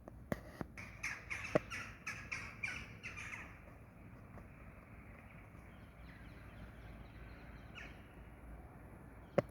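A bird giving a quick run of about ten harsh, squawking calls, roughly three a second, that stops after about three seconds, leaving faint birdsong. A sharp click comes just before the end.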